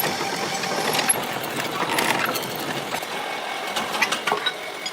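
Workshop machinery running steadily with a faint steady hum, with scattered sharp metallic clicks and knocks throughout.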